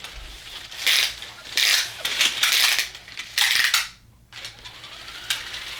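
Die-cast pullback toy cars running: short whirring, rattling bursts from their spring-driven pullback motors and small wheels on a hard surface, four of them in the first four seconds, then quieter.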